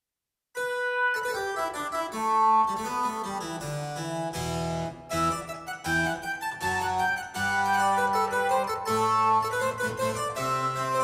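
Nord Electro 6D stage keyboard playing a harpsichord patch: a melody over a moving bass line, starting after about half a second of silence.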